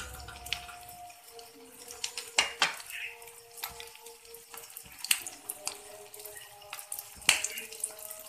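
A shami kebab shallow-frying in oil on an iron tawa, sizzling and crackling steadily, with a few sharper pops now and then.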